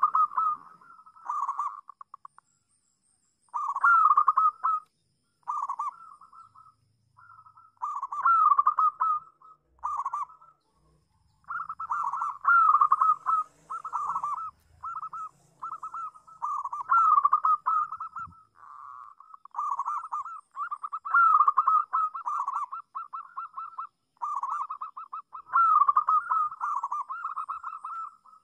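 Local zebra dove (perkutut lokal) cooing: phrases of rapid, rolling coos, each lasting from half a second to a few seconds, repeated with short pauses, and a longer pause about two seconds in.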